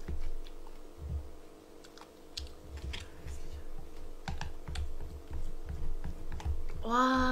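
Close-miked eating sounds: chopsticks clicking and tapping in a bowl of spicy cold noodles, with chewing and soft low thumps. A short rising vocal exclamation comes near the end.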